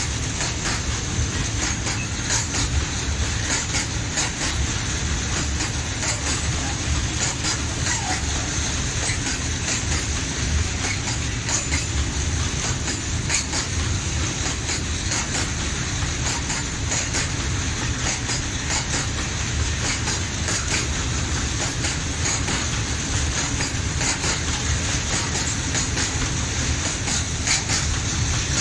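Freight train of open-top coal wagons rolling steadily past: a continuous rumble of wheels on rail, with frequent short clicks as the wheels run over the rail joints.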